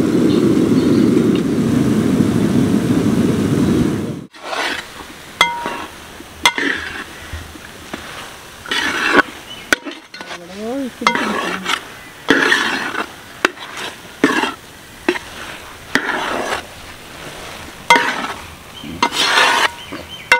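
Long steel spoon stirring thick carrot halwa in a large aluminium pot: a run of scraping strokes about once a second, with light clinks of metal on metal. A steady low rumbling noise fills the first four seconds, then cuts off.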